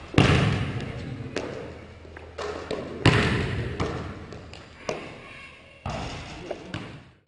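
A basketball thudding and bouncing on a hardwood gym floor, each hit echoing through the large hall. There are two loud hits, one just after the start and one about three seconds in, with several lighter ones between and after.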